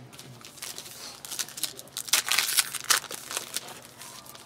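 Shiny wrapper of a 2009 Donruss Gridiron Gear trading-card pack crinkling and tearing as it is pulled open by hand, with a thick run of sharp crackles in the middle.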